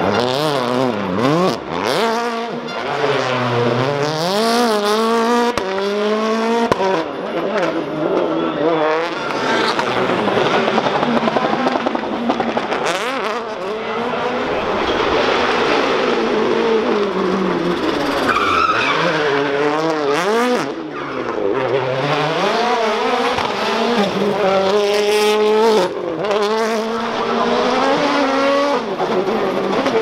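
Hyundai i20 WRC rally car's 1.6-litre turbocharged four-cylinder engine driven flat out, revving up and dropping again and again through gear changes as the car is thrown into slides, with tyre squeal.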